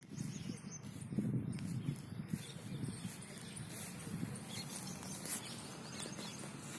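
Outdoor ambience of low, uneven rustling and handling noise as a phone is moved about over a lawn, with faint, scattered bird chirps in the background.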